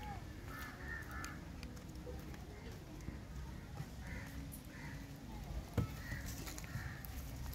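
Birds giving short, rough calls again and again, with a single sharp knock about six seconds in.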